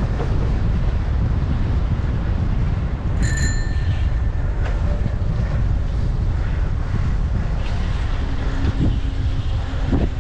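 Wind buffeting the microphone of a moving bicycle, a steady rumble throughout, with a single ring of a bicycle bell about three seconds in.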